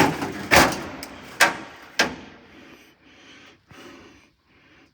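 Four loud knocks or clatters in the first two seconds, roughly half a second apart, each trailing off, then fainter rustling and a few small ticks.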